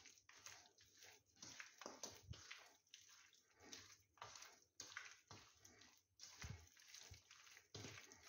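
Hands squishing and turning chicken wings in a wet flour coating in a steel bowl: irregular soft squelches, about two or three a second.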